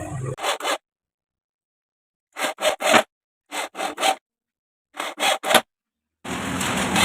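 Short scraping strokes of a tool or abrasive on wood, in quick groups of three with dead silence between. From about six seconds in, the homemade wood lathe runs with a steady low hum and continuous tool-on-wood scraping.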